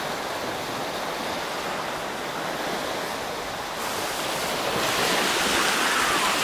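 Ocean surf: a steady rushing wash of waves that swells louder about four to five seconds in.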